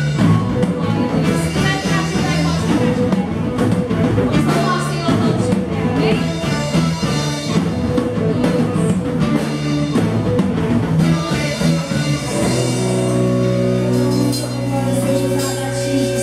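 Christian praise song played by a band, with drum kit and guitar. About twelve seconds in, the drum hits mostly drop out, leaving held chords.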